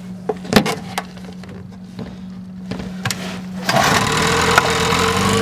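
A few sharp knocks, then about three and a half seconds in a 6 hp Evinrude two-stroke outboard motor catches on a single pull of the starter cord and settles into a steady, slightly noisy idle.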